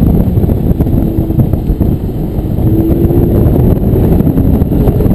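Lamborghini Gallardo LP560-4 Spyder's 5.2-litre V10 engine running as the car is driven through autocross turns, heard from inside the open-top cabin with wind rumbling on the microphone. The engine note rises slightly about halfway through.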